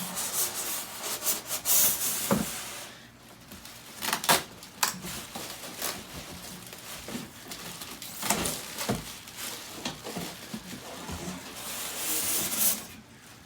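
Packaging and accessories of an air fryer toaster oven being handled during unboxing: irregular rustling and rubbing, with several sharp knocks of parts being moved.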